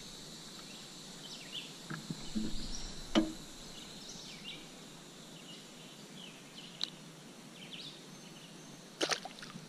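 Quiet outdoor lake ambience with scattered faint high bird chirps. A single sharp knock comes about three seconds in, and a few quick handling clicks come near the end.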